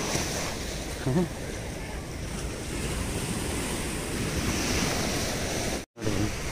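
Sea surf washing steadily on a sandy beach, with wind buffeting the microphone. The sound cuts out briefly near the end.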